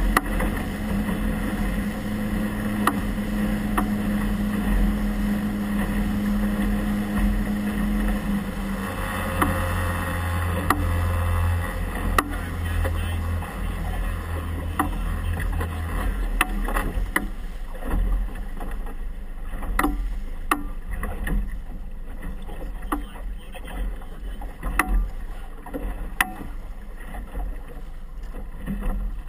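A small boat's motor running at a steady pitch, dropping to a lower pitch about nine seconds in as it throttles back, then fading out about halfway through. After that, choppy water slaps and knocks irregularly against the hull.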